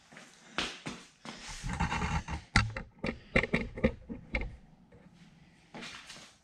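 Irregular knocks, clicks and clatter of clamps, wooden blocks and metal parts being handled and set down on a concrete floor, with a denser rattling stretch about two seconds in and several sharp knocks in quick succession after it.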